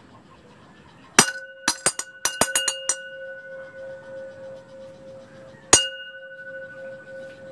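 A small bell-like object struck to ring: one hard strike about a second in, then a rapid run of about seven taps, then a single strike a few seconds later. Each strike leaves a long, clear ringing tone, likely a sound cue in a mouse-conditioning experiment.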